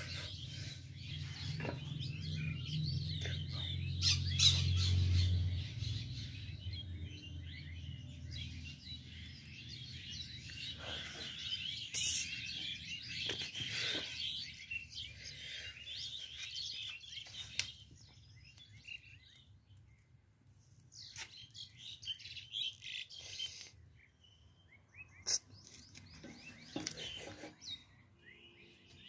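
Birds chirping, dense and overlapping through the first half and sparser later, with a low hum in the first few seconds.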